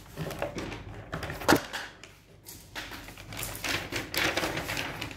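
Sheets of notebook paper being handled and turned over, rustling, with one sharp knock about one and a half seconds in.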